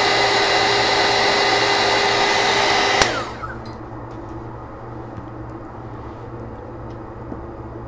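Heat gun running with a steady blowing hiss and whine. It is switched off with a click about three seconds in and winds down, leaving only faint light taps.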